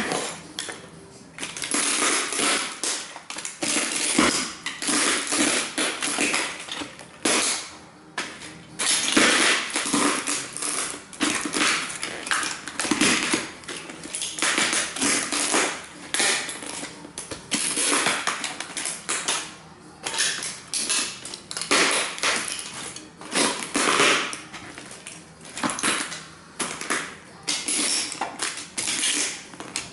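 Cowboy boots stomping on and grinding the smashed pieces of model train buildings: irregular crunching and crackling of the broken pieces, with the knocks of the boots coming down, again and again.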